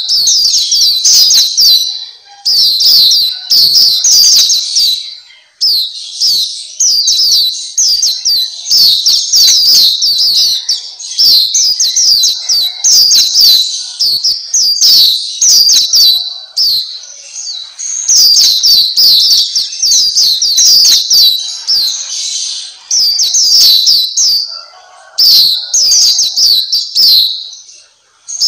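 Black-capped white-eye singing a fast, rambling chattering song of high, quick notes, in phrases a few seconds long with short breaks between them.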